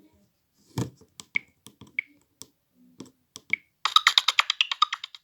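Scattered clicks and taps with a few short high beeps from a phone being handled between ringtones, then a fast run of clicks for about a second near the end.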